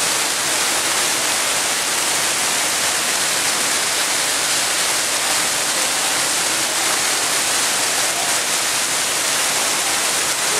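Man-made waterfall pouring down a rock face, a steady, even rush of falling water.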